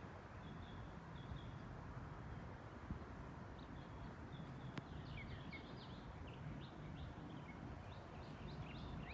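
Small birds chirping in short, high, scattered calls over a faint low outdoor rumble, with one sharp click about halfway through.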